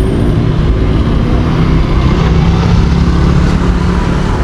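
Road traffic, with a nearby motor vehicle's engine running at a steady low drone.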